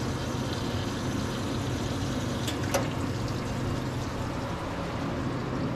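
Wire EDM machine running its automatic edge-touch alignment cycle: a steady hum with an even, water-like rushing from its pumps. Two short clicks come about two and a half seconds in.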